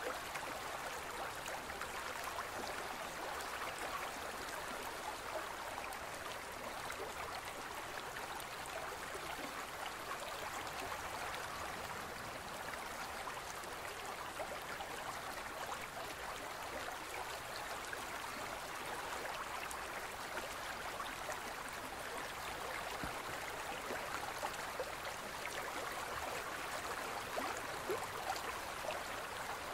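Gentle stream flowing steadily, a continuous rush of water flecked with small splashes and trickles.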